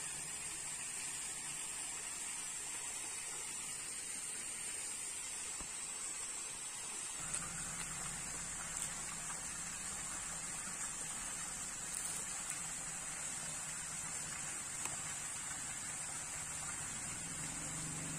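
Steady rushing of water from small waterfalls pouring into the river, with a steady high hiss. About seven seconds in, a low steady hum joins, and a few faint ticks sound.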